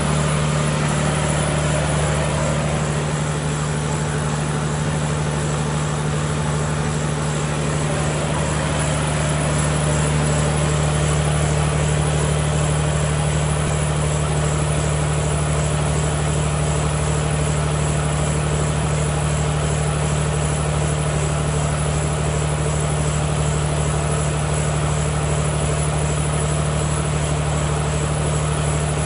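Volvo Penta diesel generator set running steadily at constant speed, an even low engine hum.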